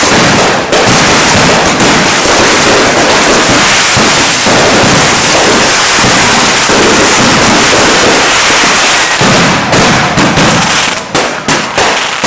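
Fireworks finale: a rapid, nearly continuous barrage of loud explosions that thins into separate bangs about eleven seconds in.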